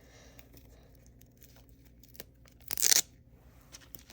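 A package being torn open by hand: one short, sharp rip a little before three seconds in, among faint crinkling and handling rustles.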